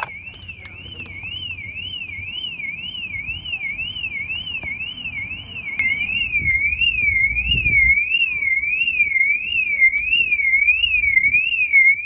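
Car anti-theft alarm siren wailing, its pitch sweeping up and down about twice a second without a break. It gets louder from about six seconds in.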